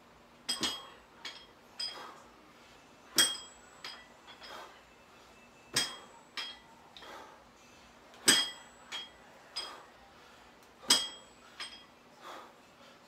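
Plate-loaded dumbbells clinking metal on metal as they are lifted and set down through the reps. A sharp, ringing clink comes about every two and a half seconds, with lighter clinks between.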